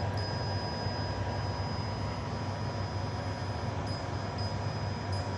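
Trotec laser cutter running while it cuts acrylic sheet: a steady machine whir with a low hum and a faint, thin, steady high tone.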